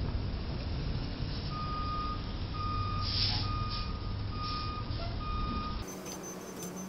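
Box truck's reverse alarm beeping at one steady pitch, about one beep a second, starting about a second and a half in, over a low rumble of traffic, warning that the truck is backing up. A short hiss comes about three seconds in, and the sound changes abruptly near the end.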